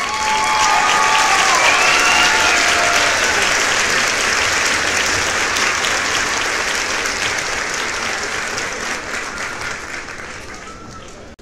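A crowd applauding. The applause swells suddenly at the start and slowly fades away, with a few voices calling out over it in the first few seconds.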